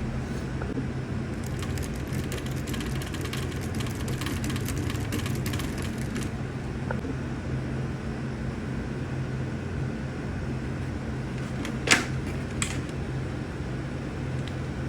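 A steady low mechanical hum, like a fan or air conditioner, with rapid light clicking and tapping for the first six seconds and two sharper clicks near the end.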